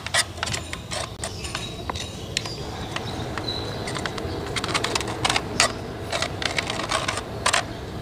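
Irregular metallic clicks and taps of a screwdriver levering a Volvo FM440 truck clutch disc to centre it in the clutch assembly, over a steady low background hum. The taps come more often in the second half.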